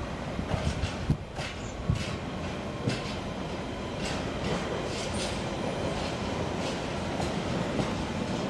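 Freight train of high-sided aggregates wagons rolling away along the track. Its wheels give several sharp clicks over rail joints in the first few seconds, then settle into a steady rolling rumble.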